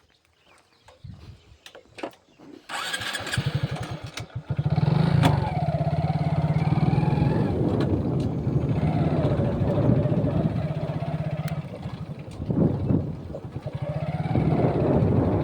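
A small engine starts about three seconds in with a quick run of firing pulses, then runs with its pitch rising and falling. It eases off briefly near the end and picks up again.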